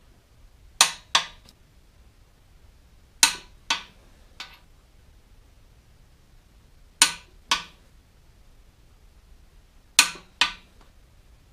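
Click-type torque wrench clicking as it reaches its set torque of 100 foot-pounds on the main bearing cap bolts: four sharp double clicks a few seconds apart.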